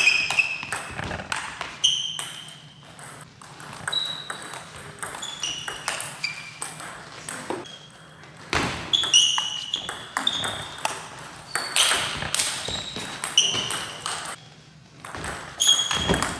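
Table tennis ball being hit back and forth off the paddles and bouncing on a Joola table, each stroke and bounce a sharp click with a short, high ping. The hits come in irregular runs, one rally after another.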